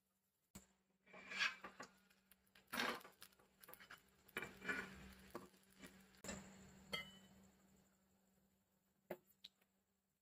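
Spatula scraping and tapping on an iron tawa while an omelette is loosened and flipped, in several short separate scrapes over a few seconds, with a faint hum underneath.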